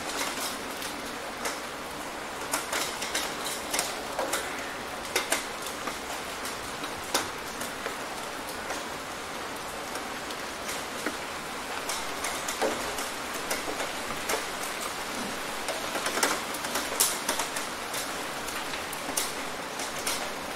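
Steady rain falling in a storm, with many sharp, close drop hits on a hard surface landing at irregular moments. The hits are loudest in a cluster about three-quarters of the way through.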